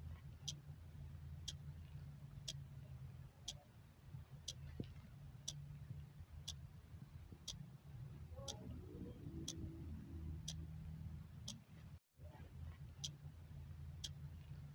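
Clock ticking steadily, one tick a second, over a low steady hum. The sound cuts out for a split second about twelve seconds in.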